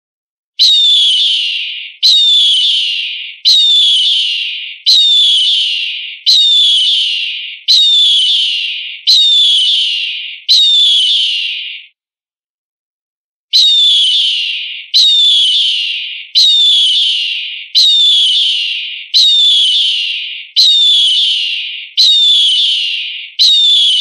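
A recorded eagle call: a high, shrill scream that falls in pitch, repeated about every second and a half with each cry the same. Eight cries, a pause of about a second and a half just before halfway, then eight more.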